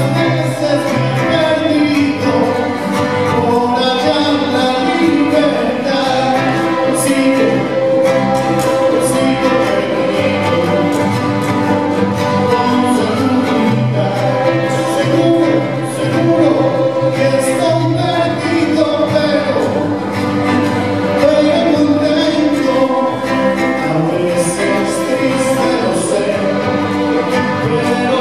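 Live string orchestra of violins, cellos and double basses with an acoustic guitar, playing a piece with long sustained chords.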